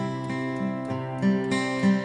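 Instrumental music with plucked acoustic guitar, no singing.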